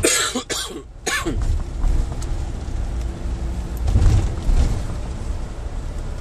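A person coughs three times in quick succession at the start, over the steady low running of a Scania K440 double-decker coach's six-cylinder diesel engine heard from inside the cabin. The engine note swells briefly about four seconds in.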